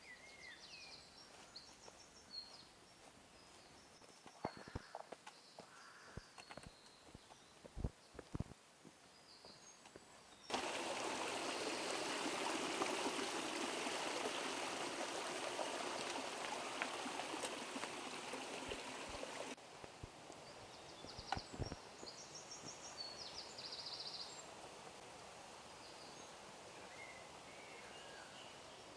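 A small mountain stream trickling and splashing over mossy rocks, a steady rush that starts abruptly about ten seconds in and cuts off about nine seconds later. Before and after it, forest birds chirp and a few scattered knocks sound.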